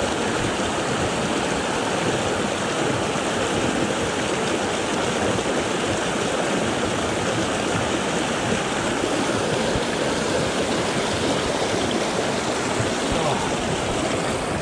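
A small mountain brook rushing and splashing over boulders in a close white-water cascade: a steady, even water noise.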